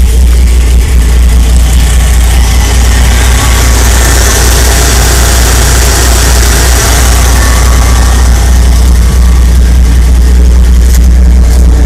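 Toyota 4Runner rock crawler's engine idling steadily with a strong low rumble. A broad rush of fan and intake noise swells in the middle, around the open engine bay.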